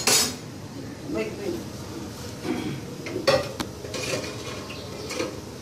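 Metal kitchenware clinking and knocking against pots and dishes, several separate sharp clinks spread over a few seconds.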